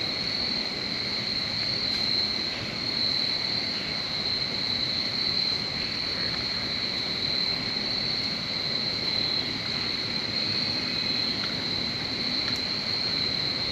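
Steady chorus of insects, a continuous high trilling that does not let up, over a low steady rumble.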